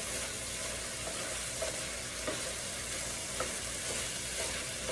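Cubed chicken and vegetables sizzling in an electric skillet with a steady hiss, stirred with a wooden spatula that scrapes and taps lightly against the pan a few times.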